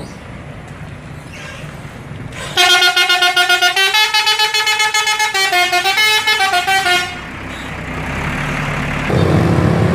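Coach's multi-tone musical air horn (a 'telolet' horn) playing a warbling tune in rapid pulses for about four and a half seconds, over the low rumble of the idling coach. Near the end another horn starts up.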